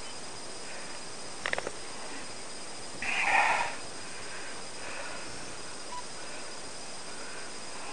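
Handling noise over a steady hiss: a few quick clicks about a second and a half in, then a short, louder rustle about three seconds in.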